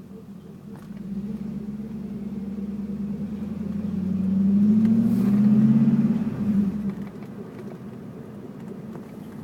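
Chevrolet Camaro's engine running at low speed, its note climbing and growing louder for a few seconds, loudest about five to six seconds in, then dropping back quickly.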